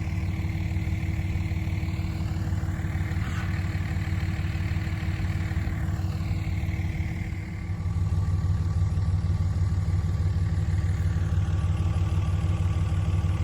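Engine running steadily with a low throb, growing louder about eight seconds in.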